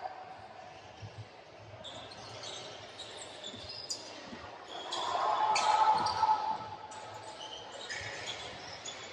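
Basketballs bouncing on a hardwood gym floor, with brief sneaker squeaks and voices echoing in a large hall. The sound is loudest around five to six seconds in.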